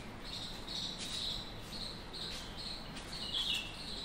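Felt-tip marker squeaking on a whiteboard as a word is written, a string of short high squeaks a few times a second, with a louder squeak about three and a half seconds in.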